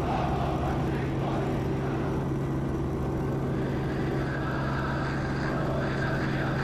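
Steady aircraft engine drone heard from inside the cabin, a constant low hum with no change in pitch.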